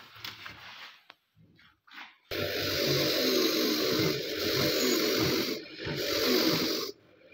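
A few light handling knocks, then about two seconds in a bench grinder's spinning wire wheel comes in loudly, scratching rust off a rusty steel AK-47 part that is held against it. The noise drops briefly twice as the part is lifted and shifted on the wheel.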